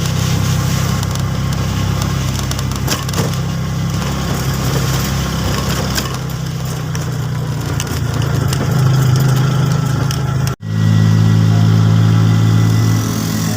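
A motor vehicle's engine running steadily, as if heard while riding along. It breaks off for an instant about ten and a half seconds in, then continues.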